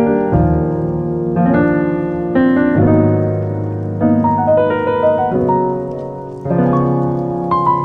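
Piano music, slow chords struck about once a second, each left to ring.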